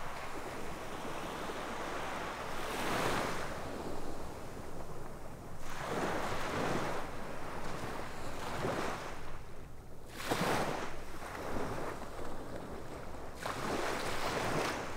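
Sea waves breaking on a sandy beach, four surges in turn, each swelling and fading about every three to four seconds.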